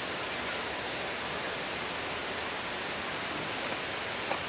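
Steady, even hiss of outdoor background noise with nothing pitched in it, and a single faint click near the end.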